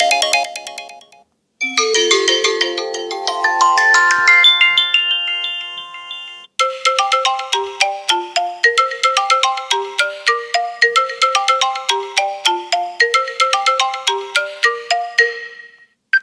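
Apple iPhone 13 Pro ringtones played one after another: one fades out about a second in, then a tune of chiming notes that ring on over each other, then a tune of short notes in a quick, repeating pattern that cuts off near the end.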